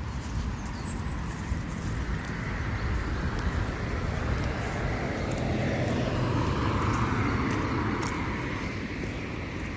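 A motor vehicle passing by: a steady rush of tyre and engine noise that builds to its loudest about two-thirds of the way through, then fades, its pitch sliding lower as it goes past.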